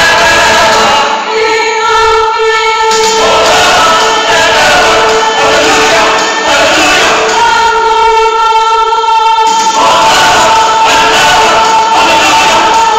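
Mixed choir of men's and women's voices singing together, holding long sustained chords twice, about a second in and again around eight seconds in.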